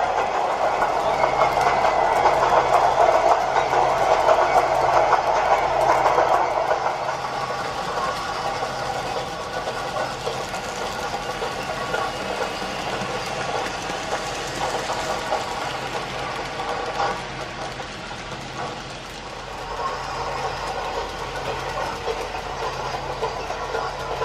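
N gauge model train running on the layout's track: a model ED19 electric locomotive hauling TOMIX Wamufu 100 freight wagons, its wheels and motor making a steady running noise. It is louder for about the first seven seconds, then settles quieter.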